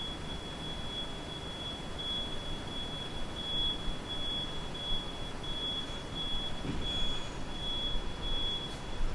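Street ambience with a low traffic rumble, over which a high-pitched electronic beeper holds one steady, slightly pulsing tone and cuts off suddenly near the end.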